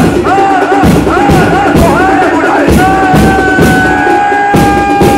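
A crowd chanting a repeated rise-and-fall phrase over a beat. About halfway through, one voice holds a long steady note.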